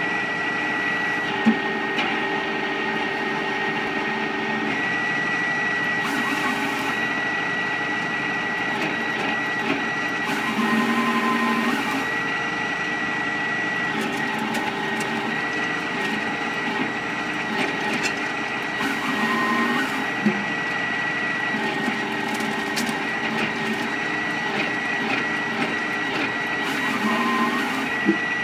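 Nokka wood chipper with newly fitted power feed rollers running steadily, with a constant thin high whine over the machine's hum. Its note changes briefly a few times, with an odd short knock.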